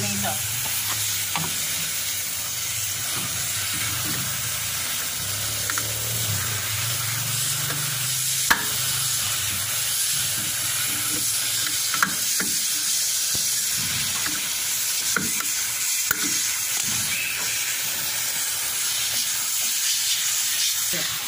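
Steady hiss of a pressure-washer water jet spraying, with a low hum through the first half and a few sharp clicks and taps, the loudest about eight and twelve seconds in.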